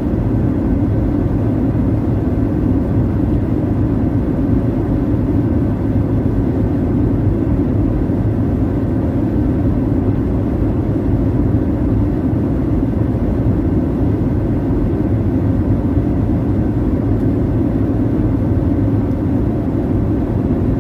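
Airliner cabin noise in flight: a steady low rush of engines and airflow, unchanging throughout, with a faint thin steady tone above it.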